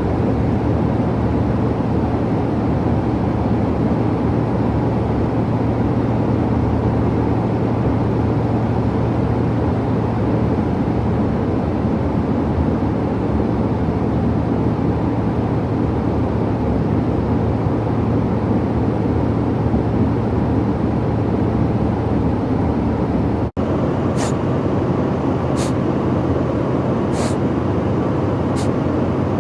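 Steady airliner cabin drone with a low hum. Near the end, after a momentary dropout, a man with a cold sniffles several times, about once every second or so.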